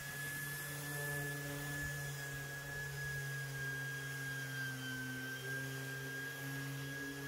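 Electric orbital sander running steadily while sanding the underside of a sailboat's keel, a steady motor whine with a low hum beneath it.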